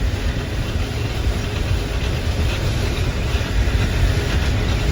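Combine harvester running steadily while cutting wheat, heard from inside the cab: an even machine noise, strongest low in pitch.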